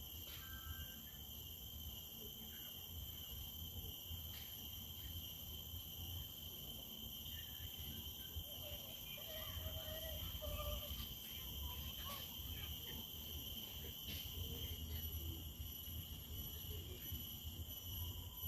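Insects chirring in a steady, high-pitched chorus, several droning tones holding without a break.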